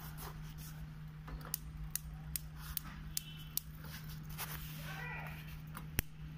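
Gas range's electric spark igniter clicking in a run of sharp ticks, mostly about two and a half a second with a couple of short pauses, as the electrodes at the burners spark: the ignition system is working.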